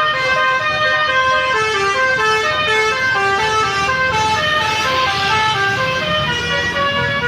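Basuri telolet bus horn playing a melody: a continuous run of steady, held horn notes stepping to a new pitch two to four times a second, with a brief hiss about five seconds in.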